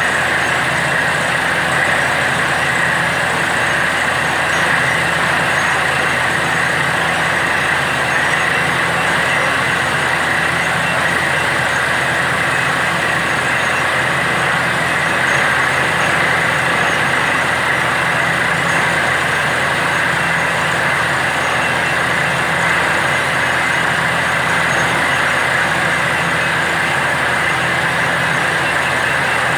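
Truck-mounted borewell drilling rig running steadily while drilling. The engine and compressor drone, and compressed air blasts water and cuttings up out of the bore, giving a loud, unbroken hiss.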